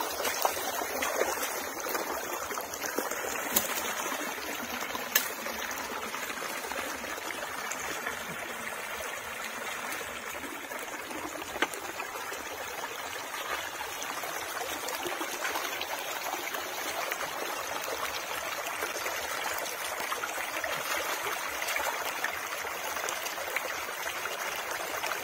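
Stream water flowing and trickling steadily, with a few sharp clicks now and then.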